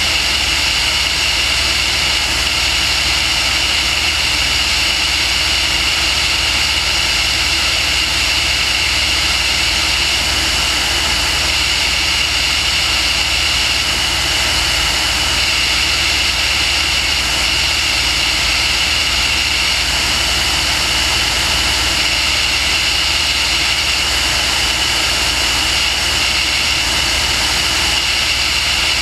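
Multirotor drone's electric motors and propellers whining steadily in flight, heard from the on-board camera, with a high pitched tone over a constant hiss and some low wind rumble on the microphone.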